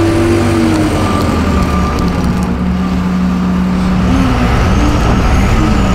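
Case 420 skid-steer loader's diesel engine running loud and steady, its pitch stepping up and down as it works, with a thin steady whine above it.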